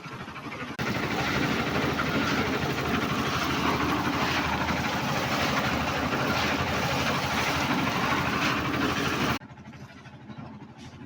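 A steady engine-like machine noise that begins abruptly about a second in and cuts off suddenly near the end.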